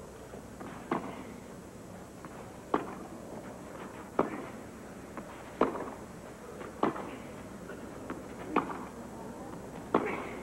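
Tennis ball struck back and forth by racquets in a clay-court baseline rally: seven sharp hits about every second and a half, over a low steady background hiss.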